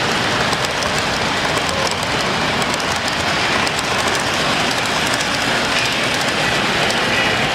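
Model train cars rolling past close by on the layout track: a steady rumble and rattle of wheels on rail, with faint clicking.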